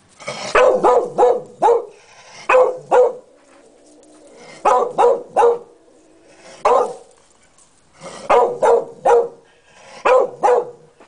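A beagle barking at a cat in short volleys of one to four loud barks, with brief pauses between volleys.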